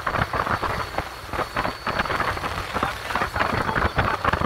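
Water splashing and slapping against the hull of a small boat underway, in a dense run of irregular splashes, with wind on the microphone.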